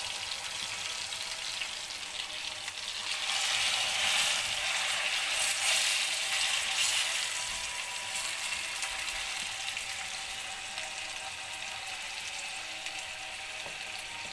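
Marinated beef steaks sizzling in oil on a hot iron tawa. The sizzle grows louder about three seconds in, as another steak goes down onto the griddle, then slowly dies down to a steady frying hiss.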